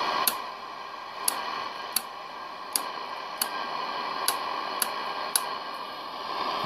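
Cobra 1000 GTL CB radio's receiver hissing with static through its speaker; a sharp switch click about a third of a second in brings the static down. Sharp clicks follow at uneven gaps of about half a second to a second.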